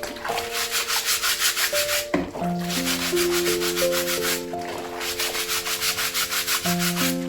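Stiff scrub brush scrubbing with quick back-and-forth strokes, several a second, with short pauses about two seconds in and again just past the middle.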